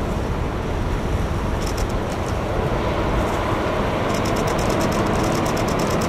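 Approaching diesel-hauled freight train: a steady low rumble of the locomotive and wagons, growing slightly louder. About two-thirds of the way in, a rapid high clicking comes in over it.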